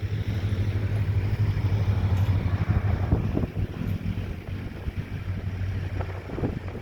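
Diesel locomotive passing close by, its engine a strong steady low rumble over wind on the microphone, with short knocks from the wheels starting near the end.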